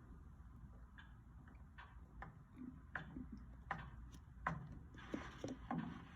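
Clock ticking softly in a quiet room, a series of light clicks under a faint low hum.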